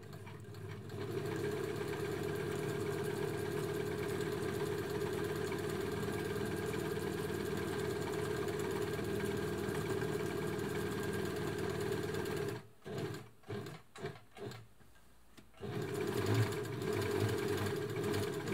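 Elna Lotus sewing machine, its hook pinion gear newly replaced, running and stitching steadily through fabric. About two-thirds of the way through it stops and sews in a few short bursts, then runs steadily again near the end.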